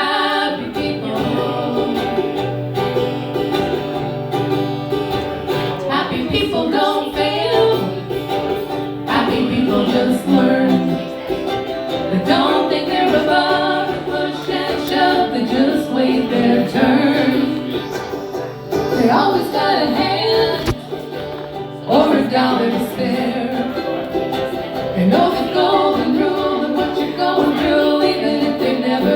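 Live country song sung by voices with plucked and strummed acoustic string accompaniment, in a banjo-like twang.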